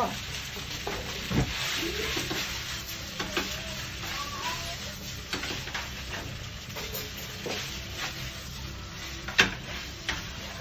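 Spaghetti sizzling in a hot frying pan on a gas stove as it is stirred and tossed with wooden chopsticks, which clack against the pan again and again. One sharper knock comes about nine seconds in.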